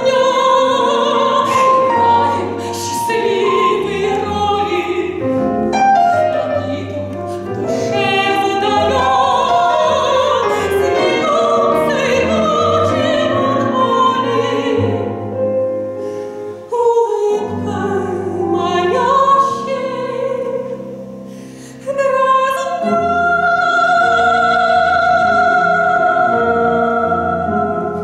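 Operatic soprano singing an operetta aria with piano and double bass accompaniment, her voice carrying a wide vibrato. Near the end she holds one long high note.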